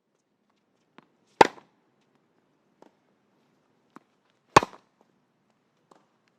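Tennis ball hit by a racket twice, about three seconds apart, each a sharp pop, with fainter short taps of the ball in between.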